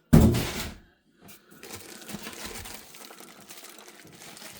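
Ceiling fan packaging being handled: a loud bump and scrape of cardboard, then about three seconds of steady rustling and crackling of packing material as parts are pulled from the box.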